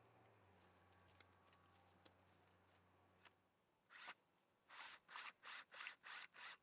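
Near silence for about four seconds, then a short scrape and a run of quick rubbing strokes, about three a second: a PVC pressure lateral pipe being slid and worked through an end cap into a geosynthetic pipe bundle.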